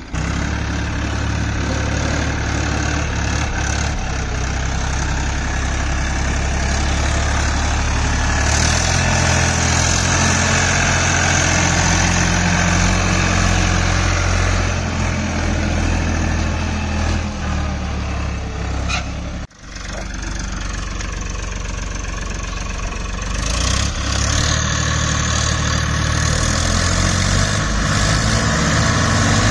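Diesel tractor engine running hard under load as its rear wheels spin in deep mud, the engine note rising and falling a few times. The sound breaks off for a moment about two-thirds of the way through.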